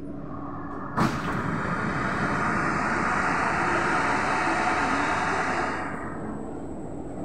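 Doors of an SMRT C151B train car opening at a station platform: a sharp clack, then a steady hiss lasting about five seconds that eases off near the end.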